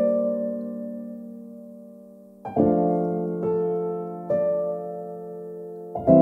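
Soft background piano music: a held chord fades slowly, then a new chord is struck about two and a half seconds in, with further notes added about once a second.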